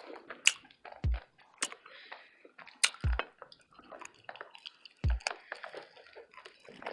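Close-miked wet chewing of a plant-based Philly steak burrito, with frequent sharp mouth clicks and smacks. Four deep low thumps come about two seconds apart.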